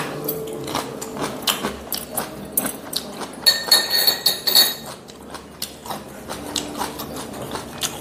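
Metal chopsticks clicking and tapping against ceramic dishes, with a cluster of ringing clinks around the middle.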